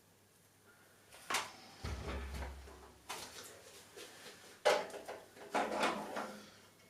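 Hard computer parts being handled: a few separate knocks and clicks with scraping rustles between them and a low thump near the start.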